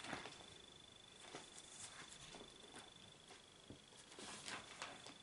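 Near silence: quiet room tone with a few faint scattered clicks and a faint steady high-pitched whine.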